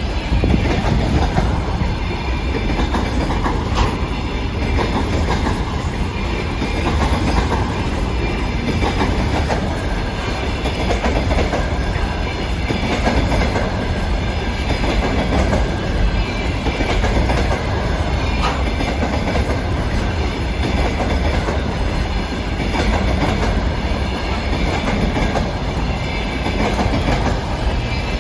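Freight train of container wagons rolling past at close range, a steady loud rumble with the clickety-clack of wheels over rail joints and a faint high squeal from the wheels.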